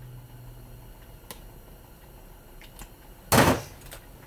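Scrap parts being worked apart by hand: a light click about a second in, then a short, loud scraping rattle a little past three seconds.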